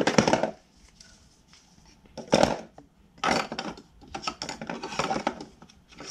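Plastic dust-hose adapters being handled and fitted into a cordless vac's battery compartment: several short bursts of plastic clattering and knocking.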